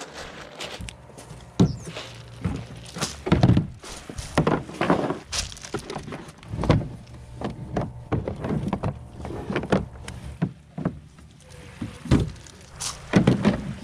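Gear being handled on a plastic sit-on-top fishing kayak (Viking Profish 45): a run of irregular knocks and thunks against the hull and deck fittings as a rod, bag and hatch are set up.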